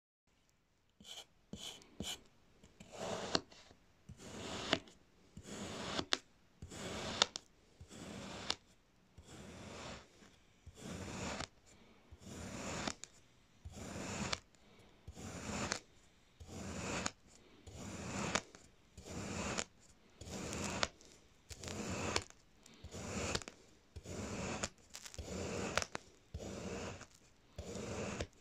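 Kinetic sand being sliced with a flat blade, one thin slice after another: a soft scraping stroke with each cut, repeating about every second and a half, with a few light clicks before the cutting settles into its rhythm.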